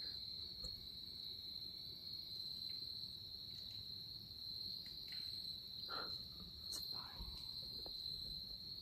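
Insects trilling in one steady, unbroken high-pitched drone.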